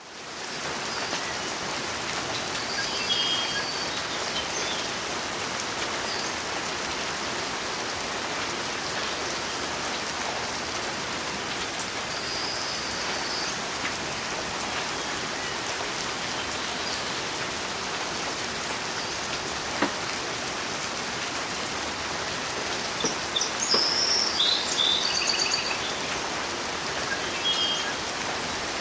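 Steady rain falling, an even hiss throughout. A bird chirps briefly a few times, most busily near the end.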